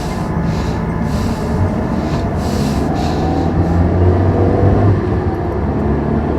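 Van running along the road: a steady low engine-and-road drone, with a rushing hiss that pulses about twice a second through the first half.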